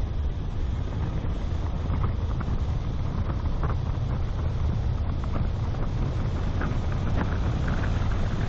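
Wind buffeting the microphone of a bonnet-mounted camera on a car driving along a tarmac road, over a steady low rumble of the car and its tyres, with occasional faint ticks.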